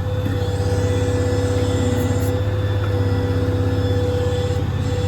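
The truck's 6.7 Power Stroke V8 diesel is running steadily to drive the crane's hydraulics: a pulsing low rumble with a constant whine above it.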